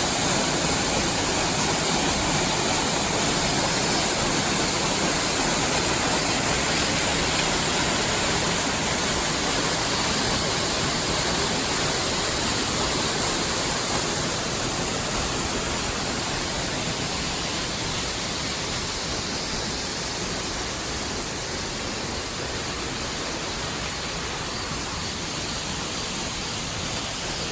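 Waterfall pouring steadily after a typhoon's rains, an even rushing roar of falling water that eases slightly in the second half.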